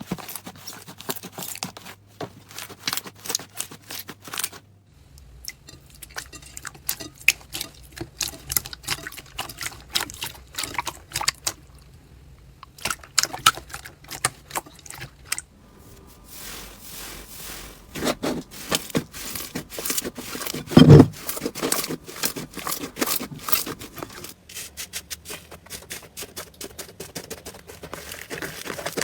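Slime being squeezed and poked by hand: rapid sticky clicks, pops and crackles, the texture changing every few seconds from one clip to the next, with one louder pop about twenty seconds in.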